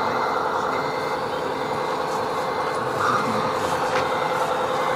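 Sound modules of RC scale tipper trucks playing a steady diesel-engine drone, with a truck reversing beeper sounding over it.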